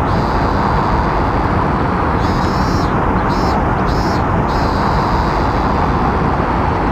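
Outdoor ambience: a loud, steady rush of noise, with a high pulsing call that repeats in short runs and then holds as one steady tone for the last couple of seconds.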